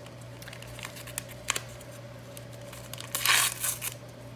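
A small paper packet of Jell-O powder being torn open by hand: a few soft crinkles, then one short rip about three seconds in.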